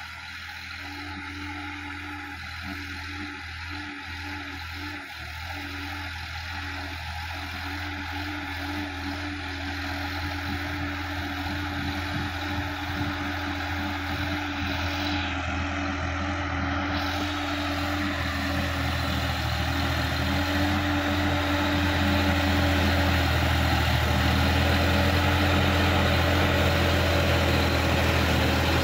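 Sonalika DI-50 RX tractor's diesel engine running steadily while pulling a tillage implement through the field, growing steadily louder as the tractor comes closer.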